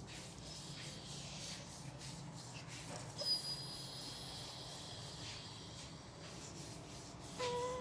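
Dog letting out a short, steady whine near the end, over a low steady hum. A single sharp click about three seconds in, followed by a thin high tone lasting a couple of seconds.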